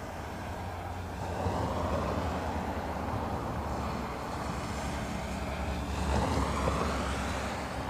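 Road traffic passing close by: the tyre and engine noise of vehicles swells and fades twice, about two seconds in and again near the end.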